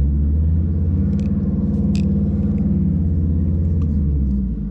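An engine running with a steady low rumble that swells and then eases off near the end, with a few faint clicks over it.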